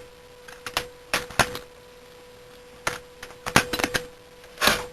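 Butterfly knife being flipped open and closed over and over: quick metallic clacks of the handles swinging and snapping together, in several bunches of two to four, with a steady faint tone underneath.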